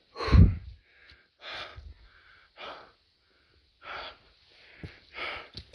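A hiker panting hard from a steep uphill climb: heavy breaths about once a second, the first the loudest, with a short click near the end.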